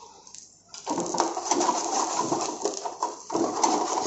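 Steel ladle stirring and scraping through garlic, onion and cumin frying in hot oil in a frying pan, with the oil sizzling. It starts about a second in, with a brief lull a little after three seconds.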